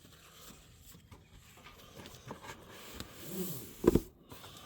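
Packaging and accessories being handled: faint rustling and small clicks, then two sharp knocks close together near the end.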